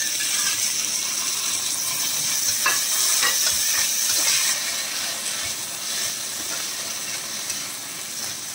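Chopped tomatoes sizzling in hot oil with sautéed onions in an iron kadai, stirred with a metal utensil that scrapes and taps against the pan a few times around the third second. The sizzle is loudest for the first four seconds or so, then eases a little.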